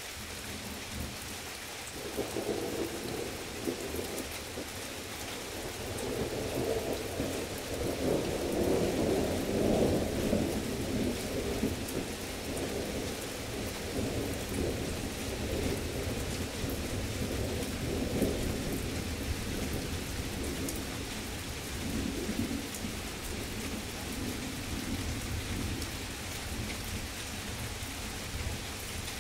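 Heavy rain falling steadily, with a long roll of thunder that begins about two seconds in, grows loudest a few seconds later and slowly rumbles away over the rest of the time.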